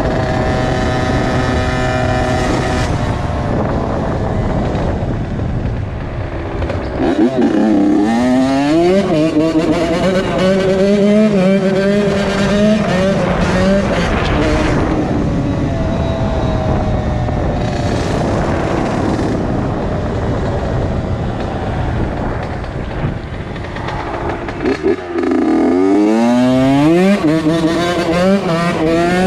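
2001 Honda CR80's 80cc two-stroke single-cylinder engine under way, its revs climbing in quick steps through the gears about seven seconds in and again near the end, with steadier running between.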